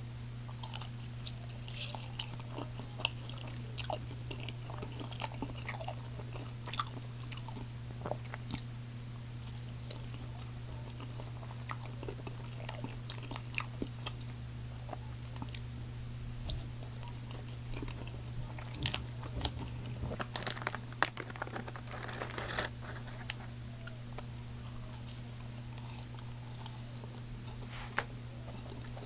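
A person biting and chewing McDonald's crispy chicken fillet close to the microphone, with irregular crunches of the fried coating, a cluster of them about 19 to 23 seconds in. A steady low hum runs underneath.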